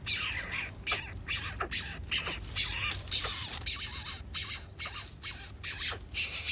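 Nestling birds giving shrill, screechy begging calls in quick succession, about two to three a second.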